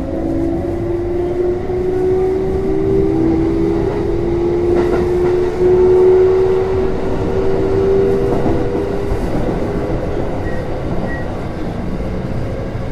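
On-board running sound of a Kintetsu 3200 series electric train accelerating: the traction motors' whine climbs steadily in pitch, several tones rising together, over a rolling rumble. The rising tones fade out after about nine seconds, leaving the steady running noise.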